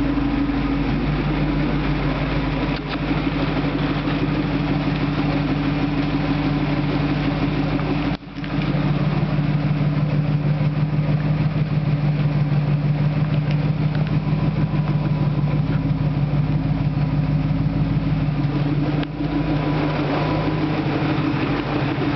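Classic Ford Mustang's engine idling steadily through its exhaust, with a fast even pulse, with a brief break about eight seconds in.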